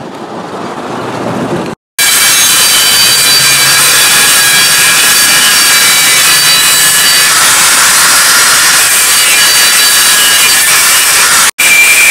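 Angle grinder with an abrasive cut-off disc cutting through a motorcycle brake disc: a loud, steady, high-pitched grinding with a whine, starting about two seconds in and breaking off for an instant near the end.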